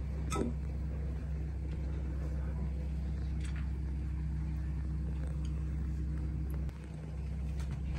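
Steady low machine hum that dips briefly about two-thirds through, with a faint tap near the start and another around the middle.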